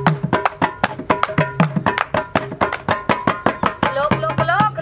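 Punjabi folk music driven by a barrel hand drum of the dholak kind, beaten in a fast, even rhythm of deep thumps and bright slaps. Near the end a wavering melody line comes in over the drumming.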